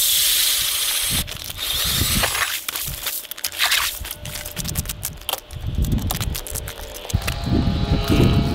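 Power ice auger boring through lake ice: a loud, steady grinding whir that stops about a second in as the hole breaks through. Then come scattered knocks, scrapes and crunching on the ice, and heavier rustling and thumps near the end.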